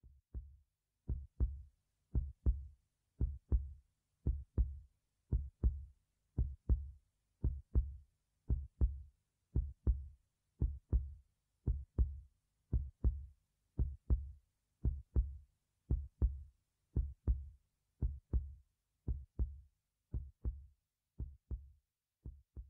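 Heartbeat sound effect: slow, deep paired lub-dub thumps, about one beat a second, growing quieter near the end.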